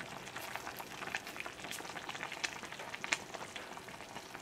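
Pot of chicken and vegetable soup simmering on a gas burner: faint, irregular bubbling and small pops, a couple slightly louder about two and a half and three seconds in.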